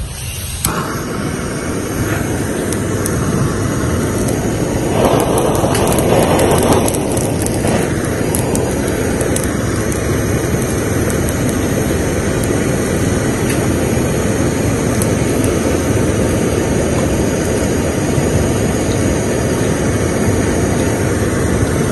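Steady rushing noise of a handheld fire-starting device blasting at charcoal to get it burning. It switches on about half a second in and holds steady, a little stronger between about five and seven seconds in.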